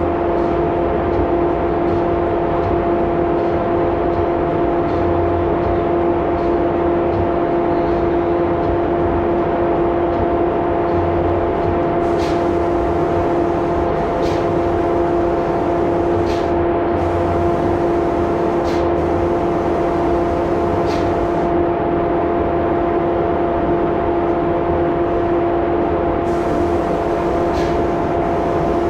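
Spray-finishing equipment running with a steady, constant-pitched hum. From about twelve seconds in, short bursts of spray-gun hiss come and go over it.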